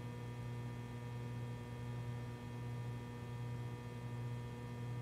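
Steady low electrical hum with faint, steady higher tones above it, unchanging throughout; no other sound.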